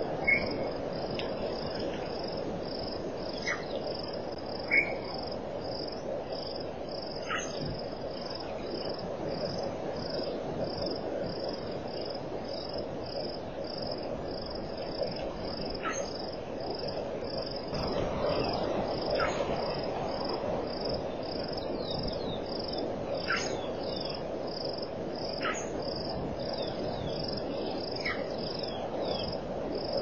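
Insects chirping in a steady high-pitched pulse, about three chirps a second, over a constant low background hiss. Short falling whistled bird calls come scattered throughout, and two sharp clicks are heard in the first five seconds.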